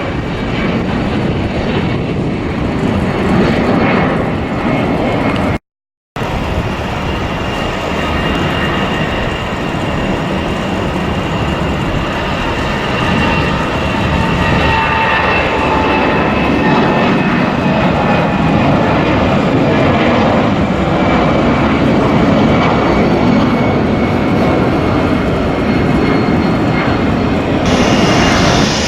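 Jet airliner engines running, a steady rush with a high whine that slowly falls in pitch. There is a brief silent break about six seconds in.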